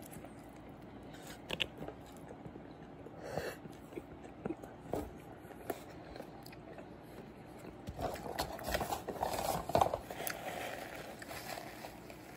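A person chewing a mouthful of bacon quarter-pounder burger close to the microphone, with scattered wet smacks and clicks. A louder, busier stretch of chewing noise comes about eight to ten seconds in.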